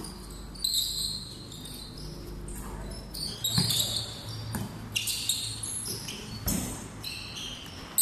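Basketball bouncing on a hard concrete court, several thuds in the second half, with sneakers squeaking on the court surface throughout.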